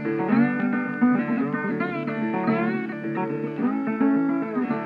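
Background music of plucked guitar, with notes that bend in pitch.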